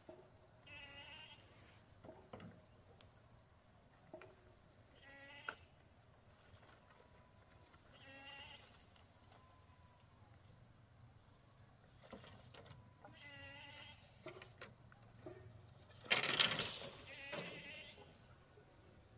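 An animal bleating: four wavering calls, each under a second long and a few seconds apart. Near the end there is a louder, noisy burst of some other sound.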